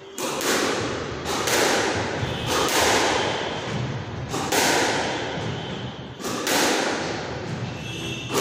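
Squash rally: the ball cracks off the rackets and slaps the front wall, two hits close together every second or two, each one echoing in the enclosed court.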